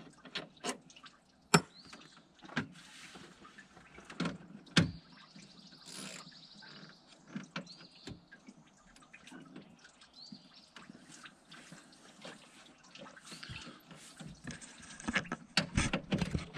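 Hand tools at work on a truck's radiator mounting: scattered clicks and knocks of metal tools and parts, with short spells of ratchet clicking, growing busier near the end.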